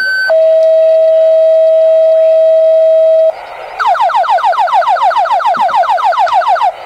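Fire dispatch tone-out over the radio: a high steady tone steps down after a moment to a lower steady tone held about three seconds. After a short gap comes a fast run of falling beeps, about eight a second, for about three seconds.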